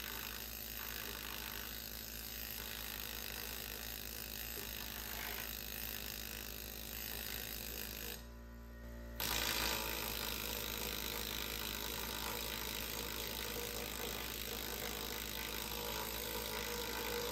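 Pneumatic needle scaler hammering and rattling on the rusty steel frame of a Triumph TR6 at the trailing arm support, knocking off scale and testing whether the metal underneath is solid or rotten. It stops briefly about eight seconds in and then carries on a little louder.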